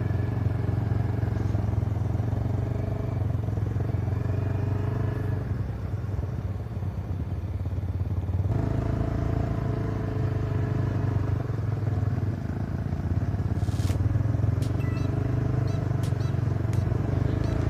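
Quad ATV engine running steadily under throttle on a muddy trail. It eases off for a couple of seconds around the middle and then picks up again. A short hiss and a few sharp clicks come in the last few seconds.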